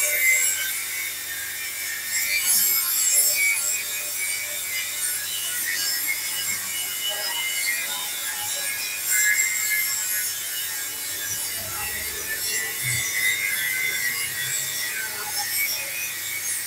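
Metalworking on steel: irregular scraping and rubbing of a tool against metal, over a steady low hum.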